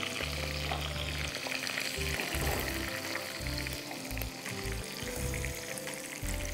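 Stuffed chicken rolls frying in a hot pan, a steady sizzle; the thick rolls are still cooking through.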